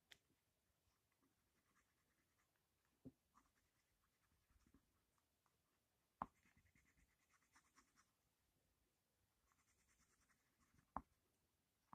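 Faint scratching of a thick Jumbo Grip coloured pencil shading on paper in quick short strokes, with three sharp clicks standing out above it.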